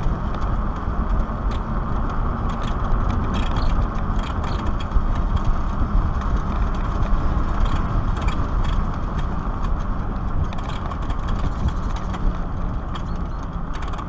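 Wind rushing over the microphone and tyres rolling on asphalt from a Black Tea Bonfire X electric motorcycle under way, with no engine sound. Light ticks and rattles come through now and then.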